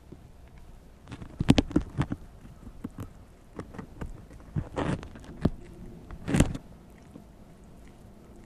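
A prairie dog gnawing at and tearing strips off the green husk of a whole ear of corn: irregular crunches and rustles in scattered bursts.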